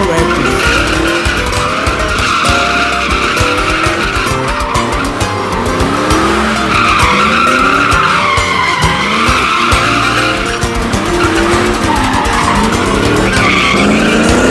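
Pickup truck's rear tires squealing and skidding through a drift, the screech wavering as the truck swings around, with music playing alongside.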